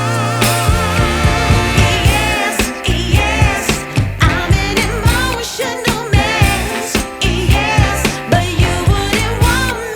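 Background pop/soul song with a sung vocal, steady beat and bass.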